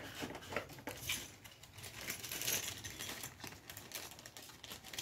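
Hands rummaging through a drawer of sewing supplies for a spare bobbin: a run of light clicks, clinks and rattles of small items.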